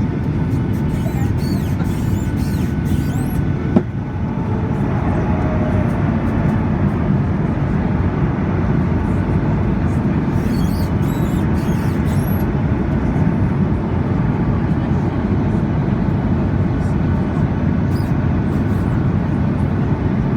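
Steady low rumble of engines and rushing air inside an airliner cabin on the approach to landing, with one sharp click about four seconds in.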